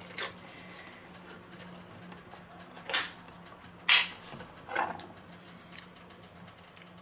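A ring-pull lid on a tin of pineapple rings is torn free with a short metallic rip. A few sharp metal clatters and knocks follow, the loudest about four seconds in as the loose tin lid is dropped onto the countertop.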